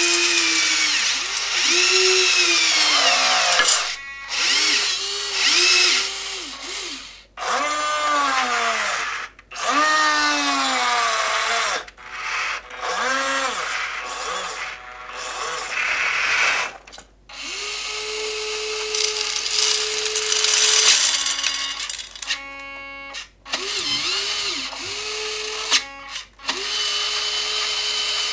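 Electric motors of an Amewi 22500 RC wheel loader whining in short repeated runs, each rising and then falling in pitch, as the bucket digs into gravel and lifts. Gravel scraping and rattling underneath.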